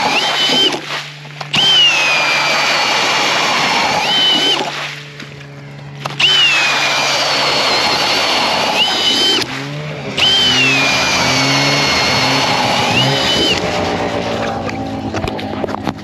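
Cordless drill turning an ice auger, boring into lake ice in three runs with short pauses between. In each run the motor's whine drops in pitch as the auger bites, then climbs back up near the end.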